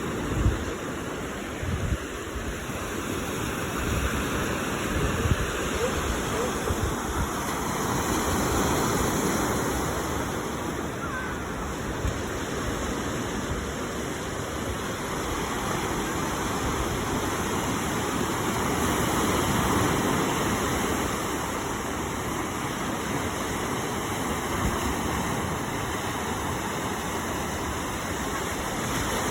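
Steady rushing wind and water noise with low buffeting rumbles of wind on the microphone, swelling gently a couple of times.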